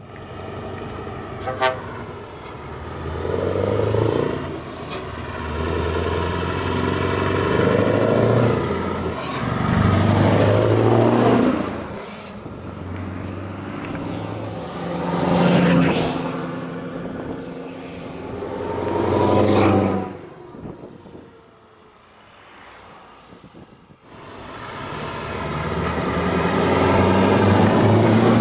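Heavy trucks, among them Scania tractor units, drive past one after another, each engine swelling as it approaches and falling in pitch as it goes by. Air horns sound during the first passes. There is a lull about three-quarters through, then the last truck approaches loudly.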